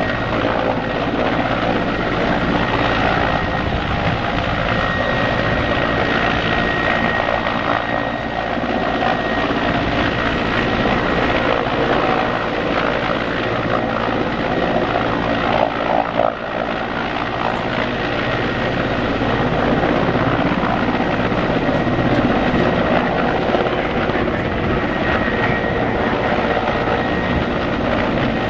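Mil Mi-14PŁ helicopter hovering, its main rotor and twin turboshaft engines running steadily, with a thin high whine over the rotor noise.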